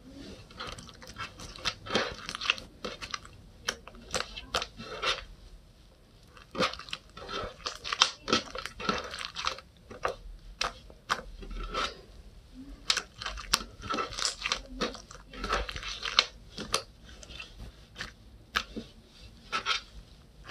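Purple galaxy slime being worked by hand, giving off a dense, irregular run of sharp pops and crackles with soft sticky squishing between them.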